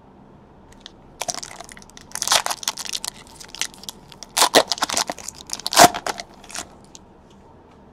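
Foil wrapper of a Panini Chronicles baseball card pack being torn open and crinkled in the hands: a run of sharp, irregular crackles and rips, loudest about four and a half and six seconds in.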